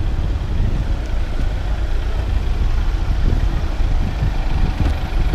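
Street traffic: a steady low rumble from the engines of a queue of cars and black cab taxis idling in a narrow street.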